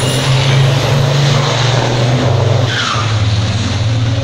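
Heavy diesel truck engine running with a loud, steady low drone.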